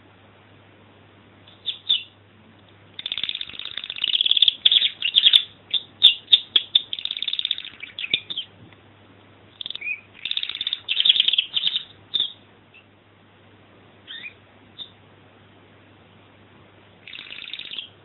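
Domestic canary singing: a long phrase of rapid chirps and trills, a pause, then a second shorter phrase, with a few single notes and a brief final burst near the end.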